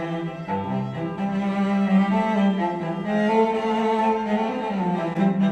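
Classical music with long sustained low notes, played through a pair of JBL 306P MKII active studio monitors and recorded by a microphone in the room.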